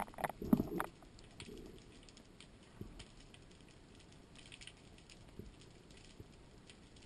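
Underwater sound picked up through a camera housing on a speargun: a quick cluster of knocks and thumps in the first second, then scattered faint clicks and crackle over a low hiss.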